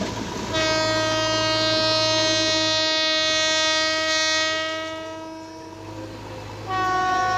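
Horn of an oncoming electric locomotive sounding two blasts: a long blast of about four seconds that fades away, then a second, slightly higher-pitched blast starting near the end. A steady low hum runs beneath.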